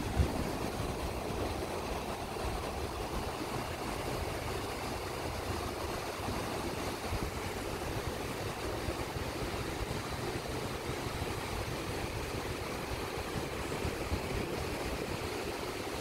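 Small Gulf surf waves washing steadily onto a sandy beach, a continuous hiss with a low rumble underneath. A single thump sounds just at the start.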